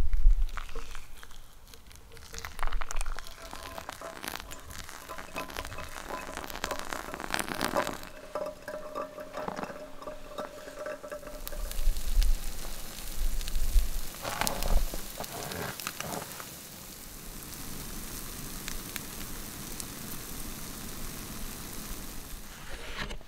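Fried eggs, bacon and bread sizzling and crackling in a frying pan, with a few louder knocks now and then.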